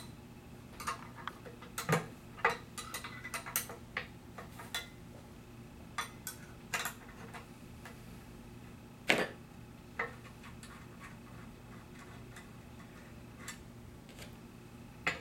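Light, irregular metallic clicks and taps of a wrench working the treadle bolts on a Collins 5550 heavy-duty hydraulic chair pump, as the bolts are loosened. The clicks come several a second at first, then thin out, with one sharper clink about nine seconds in.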